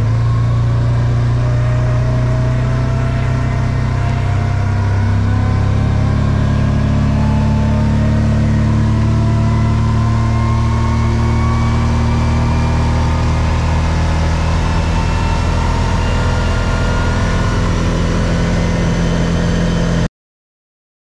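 ATV engine running under way, with a whine that rises slowly in pitch as it gains speed; the sound cuts off suddenly near the end.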